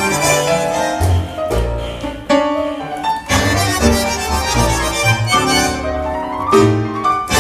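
A full tango orquesta típica playing: bandoneons, violins and cello, double basses, piano, bass clarinet and guitar, with sharp accented chords over a driving bass line.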